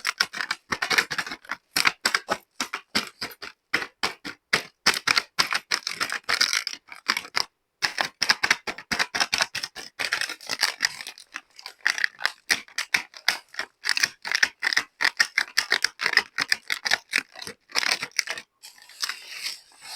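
Rapid, irregular clicking and tapping of small plastic toy kitchen pieces being handled and set down, with brief pauses.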